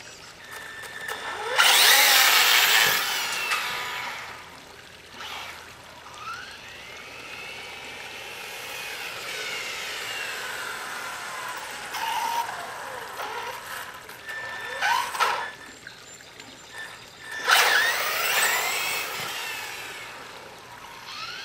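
1/8-scale electric RC buggy (HoBao Hyper 9e) running, its motor whine rising and falling in pitch as the throttle changes. There are two loud bursts of throttle, one about two seconds in and one near the end. An odd noise comes from the drivetrain that the owner cannot yet trace.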